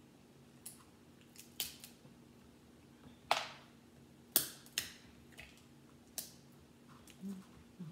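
Cooked seafood shell being cracked and snapped apart by hand: a string of sharp, separate cracks, the loudest three coming about three to five seconds in.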